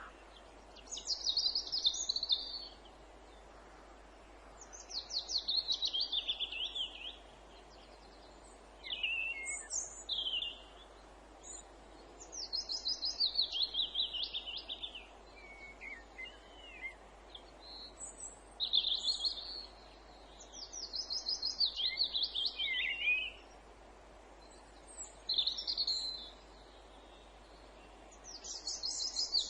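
Songbird singing: short trilled phrases, each about two seconds long and falling in pitch, repeated every few seconds, with a few shorter calls between them.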